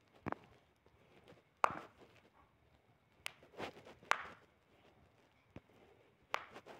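Faint, irregular knocks and soft rustles, about one every second, with no steady sound between them.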